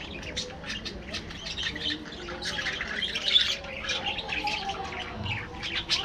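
A flock of budgerigars chattering: many quick, overlapping chirps and squawks, loudest about three seconds in.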